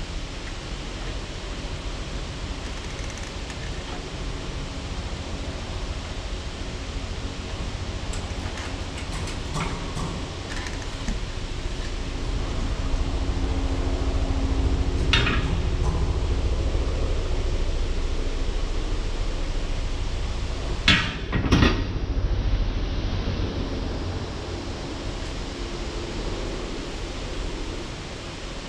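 Steady workshop background noise that swells for several seconds midway, with a few metallic knocks and clicks as tail rotor parts and tools are handled at a shop press. The loudest are two sharp knocks close together about two-thirds of the way through.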